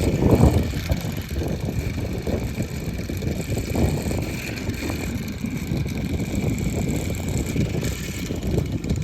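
Strong gusty wind buffeting the microphone in a continuous low rumble, strongest about half a second in. A faint steady high tone runs underneath.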